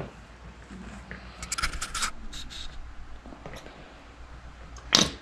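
A plastic gear-oil bottle being handled and squeezed while oil is poured into a snowmobile gearbox fill hole: a few clusters of short crackles and scrapes, then one sharper click near the end.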